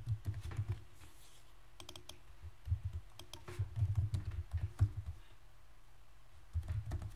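Typing on a computer keyboard in short bursts of key clicks, with brief pauses between the bursts.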